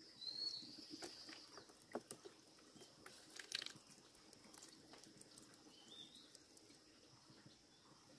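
Faint trickle of a shallow mountain stream, with a couple of short whistling bird calls and a few light clicks and taps.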